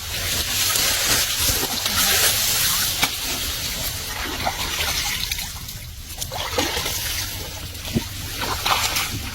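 Water sloshing and splashing, with a few short sharp clicks and knocks.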